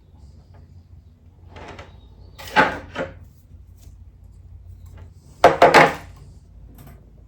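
Short scraping or rustling handling noises from working on a bonsai and its wire: two quick bursts, then a tight cluster of three a few seconds later.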